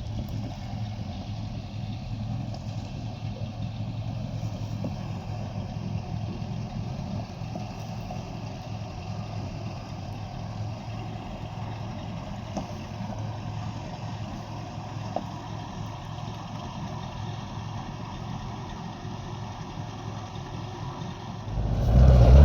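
Motor vehicle engine running steadily at low revs, a low hum. Near the end it suddenly gets much louder.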